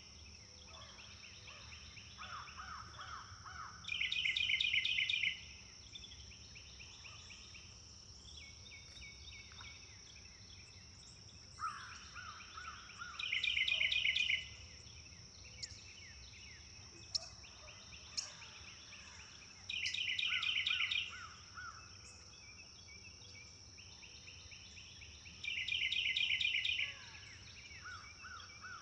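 Tropical forest ambience: a steady high insect drone under a bird's loud, rapid chattering call that repeats every several seconds. Between those calls comes a shorter run of about four lower notes.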